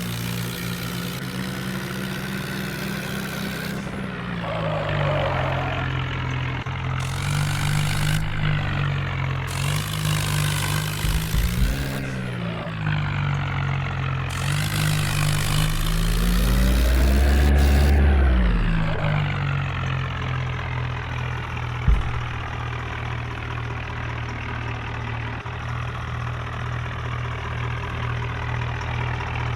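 Heavy diesel tractor engines running at low revs, revving up and labouring in several swells that rise and fall in pitch, the longest and loudest past the middle as the stuck tractor is pulled from the mud. A single sharp knock comes later.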